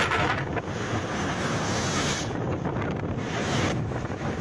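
Wind buffeting the microphone over rushing water, with louder hissing surges coming and going.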